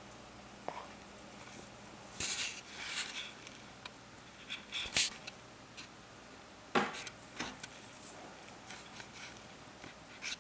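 A kitten scampering and playing, its paws and claws scrabbling and skidding on surfaces in a string of short scratchy scuffles with a few sharp knocks. The sharpest click comes about five seconds in and a heavier thump just before seven seconds.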